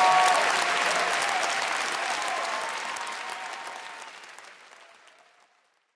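Live audience applauding, fading out steadily to silence about five and a half seconds in.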